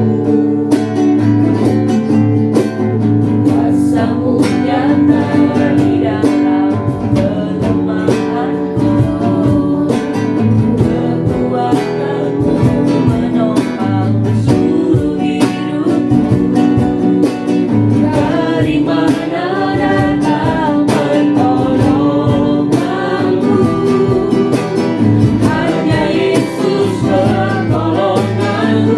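Christian worship song: singing over guitar accompaniment.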